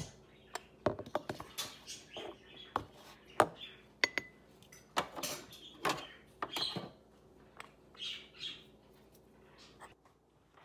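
Scattered clinks and knocks of a metal espresso portafilter and tamper being handled on a stone countertop, with a few short high chirps in between.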